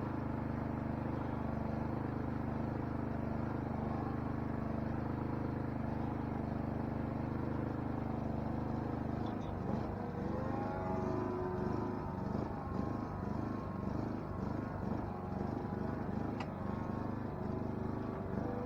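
Saito 304ST four-stroke model aircraft engine running at a steady pitch, then from about halfway its pitch starts rising and falling, wavering as the model moves and the throttle changes.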